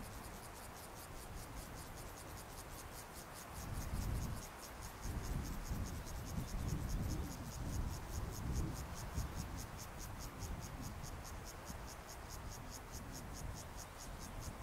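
An insect chirping in a high, fast, even pulse that never lets up, over a low uneven rumble that swells in the middle.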